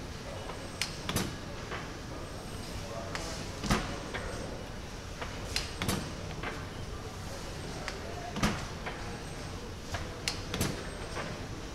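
Large stationary steam engine's valve gear clicking and knocking as it runs slowly, with a sharp knock about every two to two and a half seconds and lighter clicks between.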